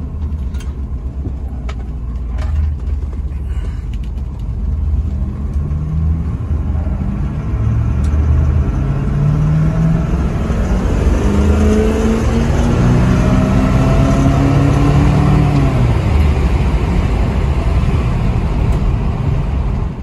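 1963 Oldsmobile Jetfire's turbocharged 215 cubic-inch V8, heard from inside the cabin while driving: a steady low rumble. The engine note climbs under acceleration from about eight seconds in, then drops away abruptly near sixteen seconds.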